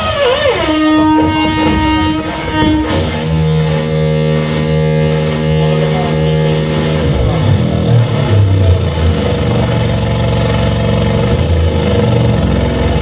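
Live harsh noise played on electronic gear: a loud, dense wall of distorted noise under held droning tones. It opens with a quick falling sweep, and the drone steps lower twice, at about three and about seven seconds in.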